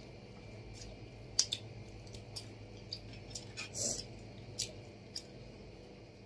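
Quiet mealtime sounds of eating by hand from steel dishes: scattered small clicks and taps, with a brief louder scraping noise about four seconds in.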